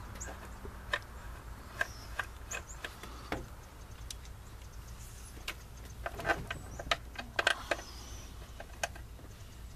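Scattered light metallic clicks and taps of timing cover bolts being handled and started by hand, with a quicker run of clicks a little past the middle.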